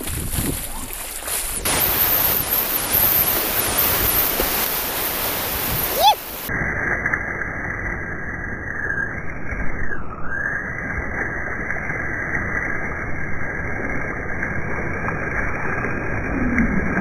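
Whitewater rushing and splashing around a stand-up paddleboard, heard through an action camera's microphone. About six seconds in, the sound turns abruptly dull and muffled, losing all its high end.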